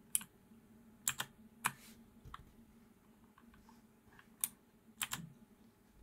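Thunderobot KC3068 mechanical keyboard with clicky switches: a few separate key presses, sharp clicks spread across the seconds, some in quick pairs.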